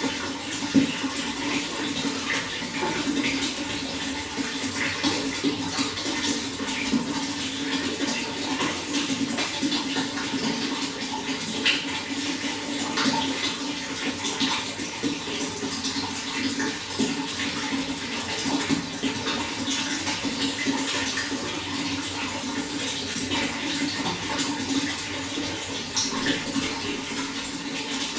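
Running water flowing steadily, with many small splashes all through.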